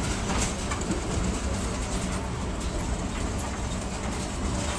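Amtrak Coast Starlight passenger train in motion, heard from inside the car: a steady rumble of wheels on the rails under an even rush of running noise, with a faint low hum.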